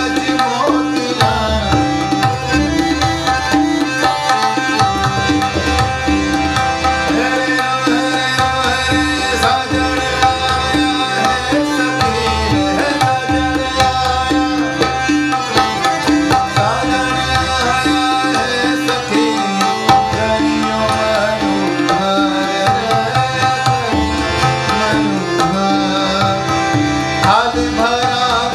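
Ghazal accompaniment: tabla playing a steady rhythmic pattern under a held harmonium drone and melody, with a sung voice gliding in near the start and again near the end.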